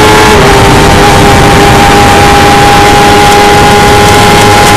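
Onboard sound of a Stohr F1000's 1000cc engine running hard at a steady high pitch, which dips slightly about a third of a second in. It is buried in loud rushing noise and overloaded distortion.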